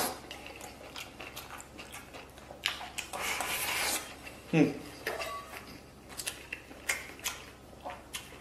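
Chopsticks clicking and scraping against a metal rice bowl as rice and braised beef are scooped up and eaten, with a louder scraping stretch about a third of the way in and a short vocal sound about halfway through.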